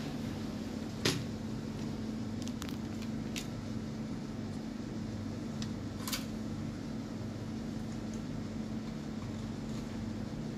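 A steady electrical hum, as of a fan or machine running, with a few light clicks and taps from handling a circuit board and a converter module; the sharpest click comes about a second in, with smaller ones a couple of seconds later and around six seconds in.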